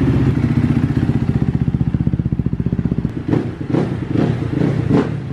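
2017 Kawasaki KX250F's single-cylinder four-stroke engine idling with a fast, even pulse through its FMF 4.1 exhaust, just cold-started and warming up. In the second half the throttle is blipped about four times, each giving a short rise in revs.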